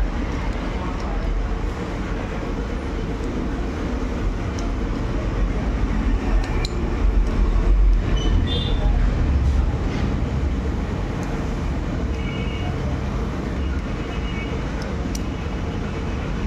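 Steady low background rumble, with a few light metallic clicks as a screwdriver works the spring on a brake master cylinder piston, and brief high beeps about twelve seconds in.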